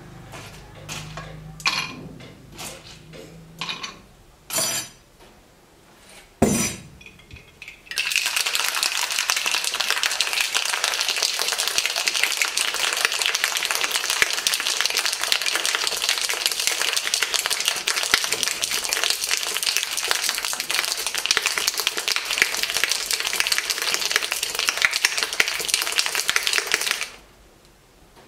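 A few scattered clinks and knocks, one of them sharp and loud, then ice rattling hard inside a stainless steel cocktail shaker being shaken for about nineteen seconds, stopping abruptly near the end.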